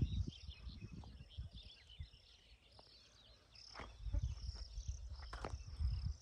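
Wind buffeting the microphone in uneven gusts, easing off for a second or so partway through and then picking up again. Over it, insects chirr steadily and birds give short chirps.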